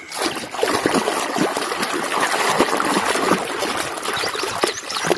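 Water running and splashing as a muddy toy vehicle is rinsed clean, with small clicks and knocks of the plastic toy being handled in it.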